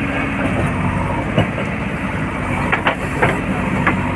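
Heavy diesel engine running steadily, with a handful of sharp metallic clanks and knocks from about a second and a half in.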